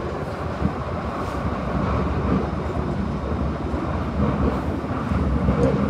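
Glasgow Subway train running, a steady rumble heard from inside the carriage.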